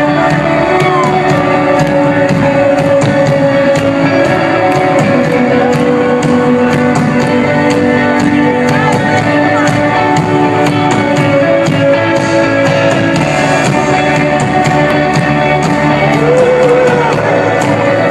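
Live rock band playing a song: sustained chords over a steady cymbal and drum beat, with a singer's wavering vocal line and some shouting from the crowd.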